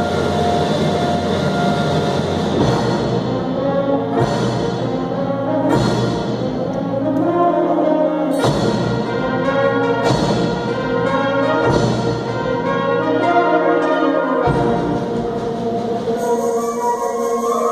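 Children's symphonic wind band playing, brass and woodwinds holding sustained chords, punctuated by loud percussion strikes with ringing crashes every couple of seconds.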